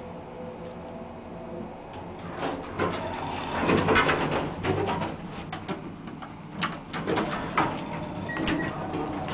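Hydraulic elevator's sliding doors opening, a rattling, clicking run of door-equipment noise lasting several seconds, over a steady low hum. Near the end, a short beep as a car call button is pressed.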